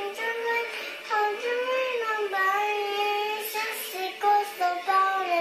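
A young girl singing unaccompanied: a single child's voice holding long melodic notes that glide up and down, with short breaks between phrases.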